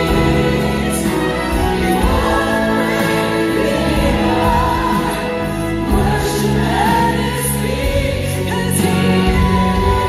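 Large church choir singing a Christmas anthem with accompaniment, sustained chords under a moving vocal line.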